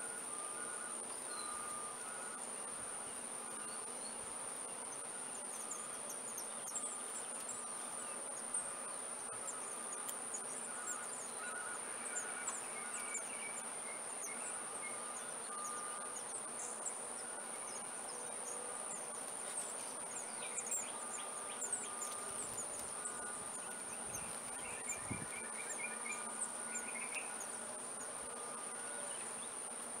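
Insects singing in a steady, high-pitched drone, with faint short chirps scattered over it and a brief trill about 25 seconds in.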